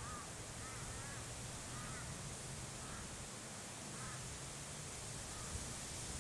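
A bird calling repeatedly, about once a second, with short arched calls that fade toward the end, over steady wind noise on the microphone.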